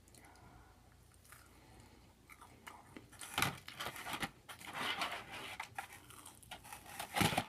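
Close-up chewing and crunching of a fried onion ring, starting about two seconds in, with irregular crunches and a couple of louder bites, one near the end.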